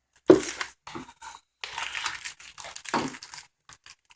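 Plastic wrapping on a Blu-ray case crinkling and tearing as it is pulled off, in several short bursts, the first the loudest.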